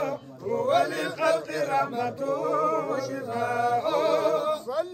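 Men's voices chanting Arabic devotional praise poetry for the Prophet, a melodic line with wavering, drawn-out notes and no instruments. The singing dips briefly just after the start, then carries on.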